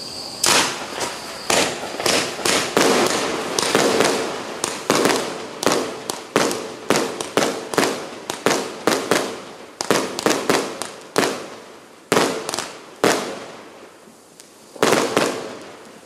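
Multi-shot consumer firework cake firing a rapid run of sharp bangs, each with a short decaying tail, about two a second. The shots slow near the end, with a final pair about 15 seconds in.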